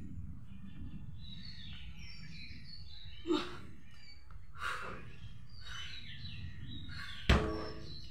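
Birds chirping over a steady low outdoor rumble, with two brief knocks partway through and a sharp, ringing clank about seven seconds in as the barbell is set down on the ground.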